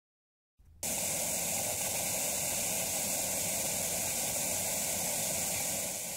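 Television static: a steady hiss of white noise that starts abruptly about a second in after silence and fades out near the end.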